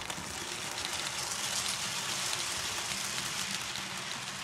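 Model train running past on the track: a steady rolling hiss of wheels on rail with a low motor hum, swelling as the locomotives pass close by and easing off near the end.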